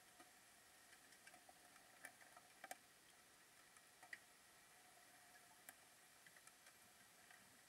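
Near silence underwater, with faint, irregular clicks and ticks over a low hiss; a few louder clicks come about two, three and four seconds in.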